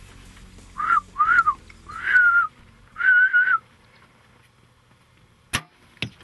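Four short whistles, each rising and falling in pitch, to stop a walking pronghorn buck for a shot. About two seconds later come two sharp snaps half a second apart: the bow's shot and the arrow hitting the buck.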